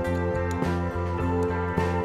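Background music: a gentle track with plucked guitar and a steady beat.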